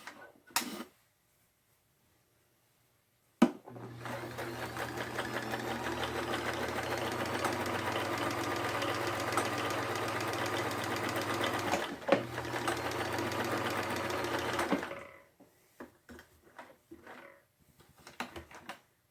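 Vintage Sears Kenmore sewing machine sewing: after a click, the motor and needle mechanism run steadily for about eleven seconds with a brief stop partway through, then stop. A few light clicks follow.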